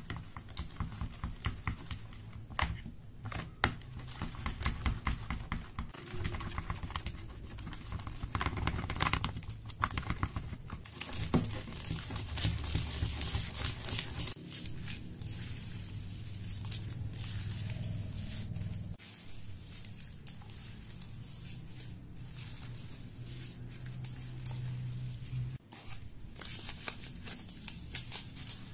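Sticky glittery glue slime being stirred with a wooden popsicle stick and then kneaded by hand in a bowl, making a dense run of small sticky clicks and pops. Near the end a plastic bag crinkles as it is opened.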